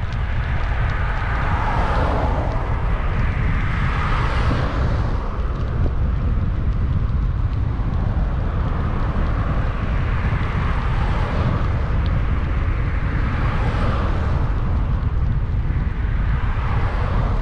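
Wind buffeting the microphone of a bicycle-mounted camera while riding, a steady low rumble. Over it, cars pass on the adjacent road several times, each a swell of tyre and engine noise that rises and fades.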